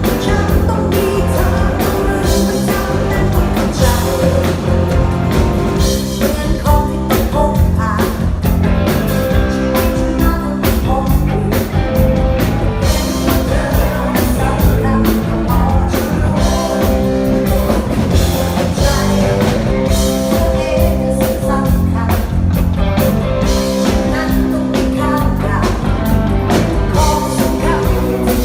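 Live rock band playing loudly through a concert sound system, with drums, guitar and a singing voice.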